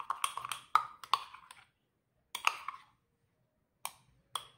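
Metal teaspoon stirring flour-and-water paste in a small cup, clicking and scraping against the cup in short bursts with pauses between: a cluster over the first second and a half, another about halfway, and a couple of single clicks near the end.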